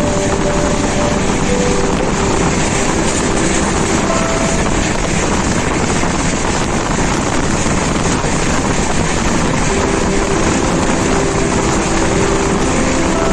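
Passenger train running: a steady rumble of wheels on track mixed with wind buffeting the microphone, heard from aboard the moving train. Faint held tones sound near the start and again from about ten seconds in.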